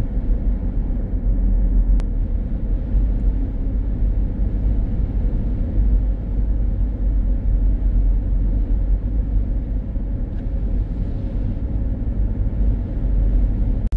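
Steady low rumble of a car driving slowly, heard from inside the cabin: tyre, road and engine noise.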